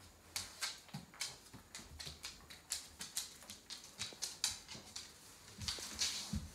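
African grey parrot making a run of sharp clicks, about three a second, then rousing: a brief rustle of its feathers being fluffed up and shaken out near the end.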